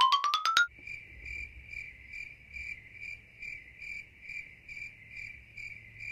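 A quick upward run of bell-like notes ends about half a second in. Then crickets chirp in an even pulse, about two to three chirps a second: a night-time cricket sound effect signalling bedtime.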